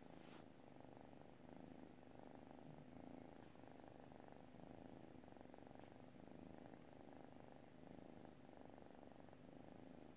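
A sleeping ginger tabby kitten purring softly and steadily.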